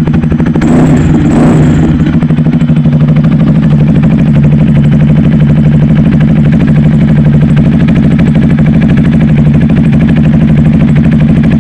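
Titan 250Fi motorcycle engine running through an exhaust fitted with a turbo whistle tip, blipped briefly about a second in with a short high whistle, then idling steadily with a fast, even beat.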